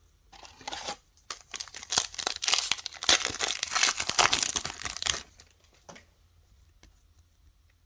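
Plastic wrapper of a trading card pack being torn open and crinkled: a dense run of crackles lasting about five seconds, loudest in its second half.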